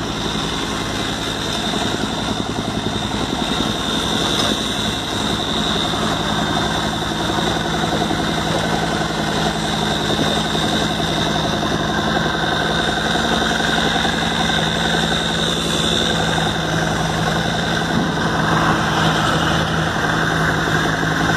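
Mini excavator's engine running steadily as the machine digs a trench, with a steady high whine over the engine note.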